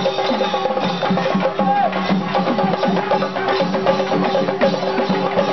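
Festival percussion ensemble playing a fast, dense rhythm of drums and sharp stick strikes over steady held tones.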